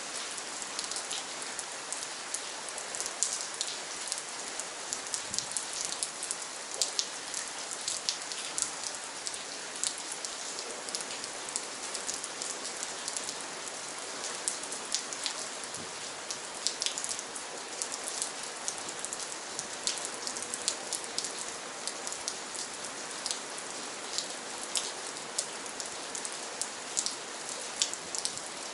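Steady rain falling, with many distinct close drop strikes over an even hiss of rainfall.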